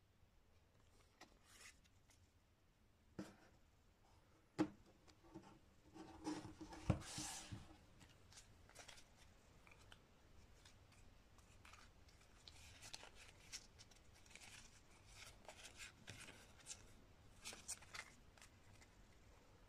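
A stack of card-game cards being handled: fanned, slid against one another and tapped, giving faint, scattered clicks and rustles. Around five to seven seconds in there is a louder stretch of knocks and sliding.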